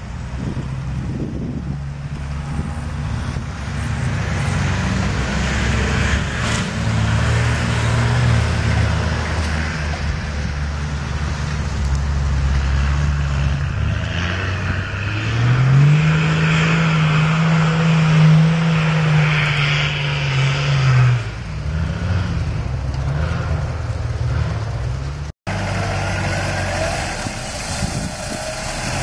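Four-wheel-drive vehicle engines running under load off-road. The engine note rises about halfway through, holds steady for about five seconds, then falls back. After a sudden cut near the end, an engine idles steadily.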